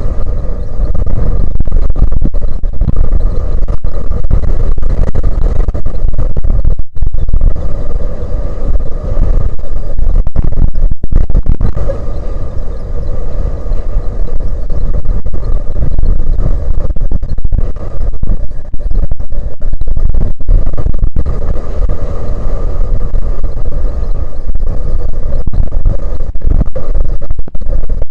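Strong wind buffeting the microphone: a loud, continuous rumble with a couple of brief dropouts, and a faint steady hum underneath.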